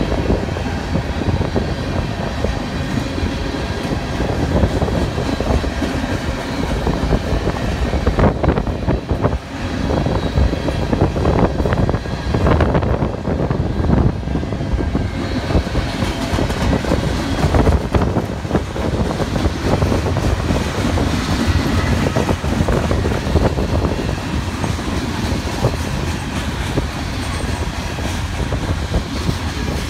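Freight train's covered hopper cars rolling past close by: a steady rumble of steel wheels on the rails, with repeated clacks as the wheels cross rail joints.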